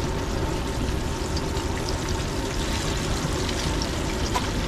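Fish frying in hot grease: a steady sizzle with scattered small crackles.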